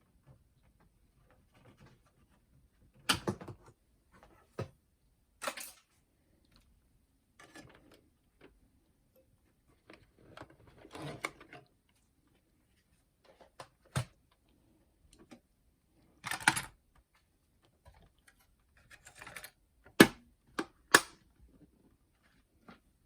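Irregular mechanical clicks and clunks from handling a boombox's cassette deck and casing, some sharp and some duller, with short quiet gaps between them.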